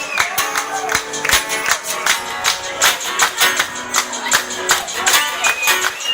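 Band music: guitar over a steady beat of sharp percussion hits, with a high sliding melody line near the start.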